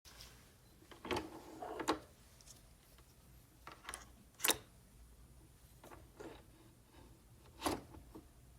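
A few separate clicks and knocks, as of small mechanical parts or objects being handled, the sharpest about four and a half seconds in.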